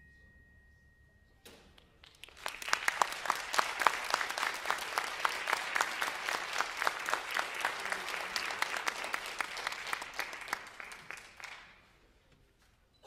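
Audience applause for a school concert band. It swells in about two seconds in and dies away near the end, with one clapper close by standing out from the crowd.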